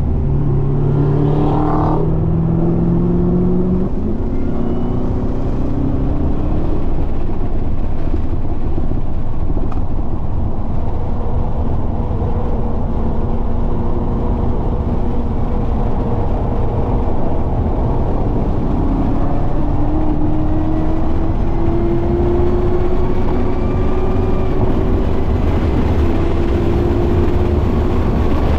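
Chevrolet Camaro ZL1 1LE's supercharged 6.2-litre V8 under hard acceleration on a racetrack. Its note rises for the first few seconds and breaks off about four seconds in, holds steadier for a while, then climbs again in one long pull through the second half, over a constant low rumble.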